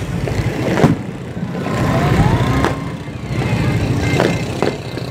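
Fireworks exploding: a sharp bang about a second in and two more near the end, over a steady low rumble of outdoor background noise, with a brief rising whistle about two seconds in.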